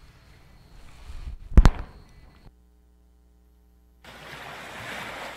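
A loud sharp thump about a second and a half in, then a moment of dead silence, then from about four seconds in the steady wash of ocean surf as waves break.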